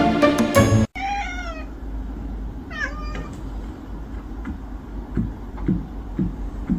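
Background music that cuts off about a second in, then a domestic cat meows twice, two short calls about two seconds apart, over a low steady rumble.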